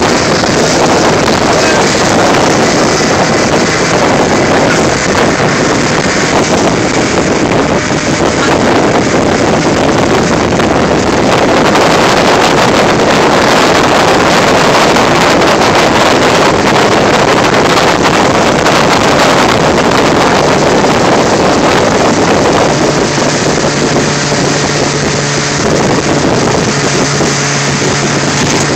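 Motorboat running at speed, its wake churning and wind buffeting the microphone in a steady loud rush. Late on, a steady low engine hum comes through more clearly.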